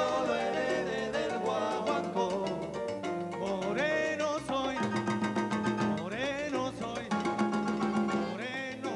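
Live salsa-style Latin band playing: timbales and cowbell keep the rhythm under bass and guitar, with a man singing over it.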